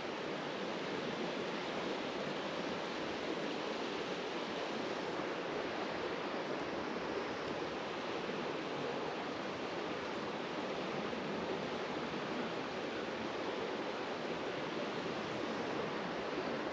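Steady rush of flowing creek water, an even hiss with no breaks or changes.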